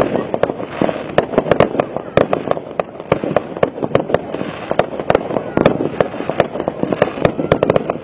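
Fireworks display: aerial fireworks bursting in a rapid, irregular string of sharp bangs, several a second, over continuous crackling.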